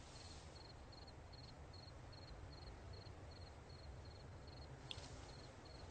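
Faint cricket chirping at a steady pace, two to three short chirps a second, over a low hum, with a soft tick near the end.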